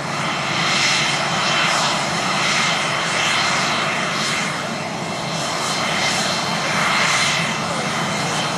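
Cessna Citation CJ4's twin Williams FJ44 turbofan engines running at taxi power as the jet rolls slowly. It is a steady jet hiss with a high-pitched whine that swells and eases a little.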